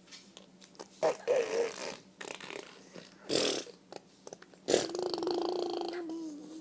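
Motorboat noises: lips blown into a buzzing raspberry trill. There are a few short bursts, then one longer buzzing trill held at a steady pitch for almost two seconds near the end.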